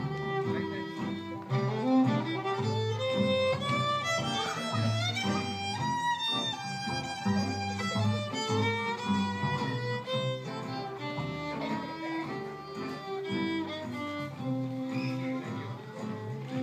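Live acoustic band: a violin plays the lead melody, with sliding notes in the middle, over acoustic guitar and upright bass accompaniment.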